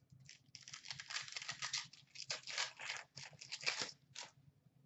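The plastic wrapper of a 2017-18 Upper Deck Series 1 hockey card pack being torn open and crinkled by hand: a run of rough tearing and rustling for about four seconds.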